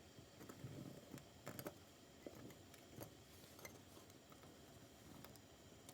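Near silence with a few faint, irregular small clicks and ticks, most of them in the first few seconds.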